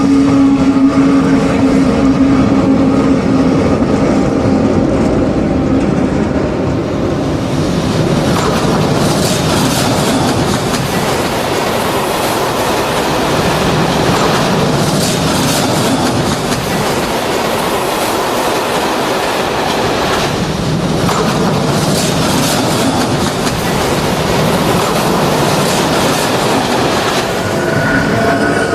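A long tank-wagon train rolling by, its wheels clattering steadily over the rail joints. A steady hum from the locomotives is heard for the first few seconds and comes back near the end.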